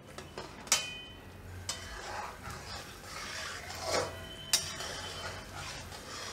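Sugar syrup at one-thread consistency bubbling in a metal kadai as it is stirred with a spatula, a steady bubbling and scraping. The spatula clinks against the pan twice, under a second in and about four and a half seconds in, each clink ringing briefly.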